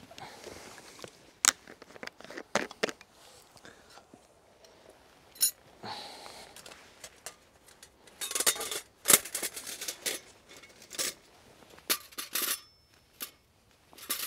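Backpack and camping gear being handled: a series of short clicks, clacks and rustles, with busier stretches of rustling about eight and twelve seconds in.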